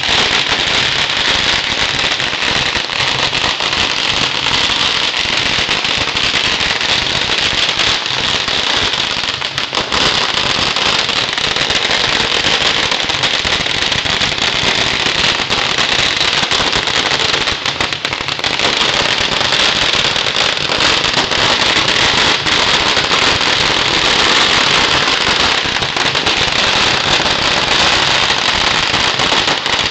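Long strings of firecrackers going off in a loud, continuous, dense crackle of rapid bangs, easing briefly about ten and eighteen seconds in.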